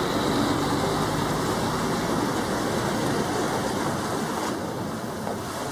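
Heavy diesel tractor-trailer trucks driving slowly on a rough dirt road, a steady mix of engine running and tyre-and-road noise.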